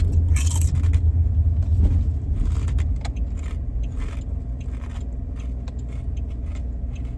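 Road and engine rumble inside a moving car's cabin, easing off about three seconds in, with light rustling and clicks over it.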